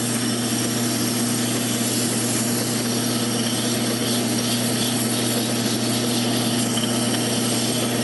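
Drill press running, spinning a wooden dowel in its chuck while 100-grit sandpaper is pressed against it by hand: a steady motor hum under a sanding hiss.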